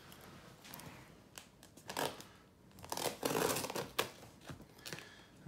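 Clear plastic packing tape being torn and peeled off a cardboard shipping box: short scratchy rips about two seconds in, a longer rip around three seconds, and a sharp one at four.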